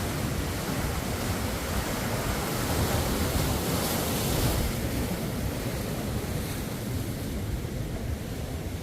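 Ocean surf: waves washing in, with the hiss of a breaking wave swelling about four seconds in and then receding.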